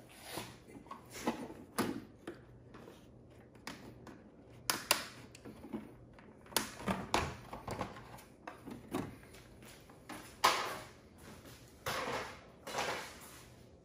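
Hands disconnecting lines and handling parts on a lawn tractor engine that is not running: scattered clicks, knocks and rustles, the loudest about ten seconds in.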